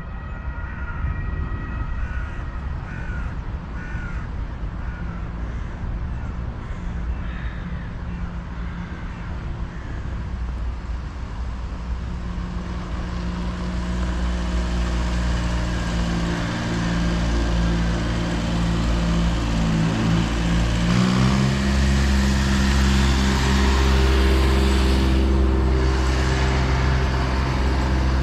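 City street ambience: birds calling in the first few seconds, then a motor vehicle's engine running steadily and growing louder, its pitch stepping up about two-thirds of the way through.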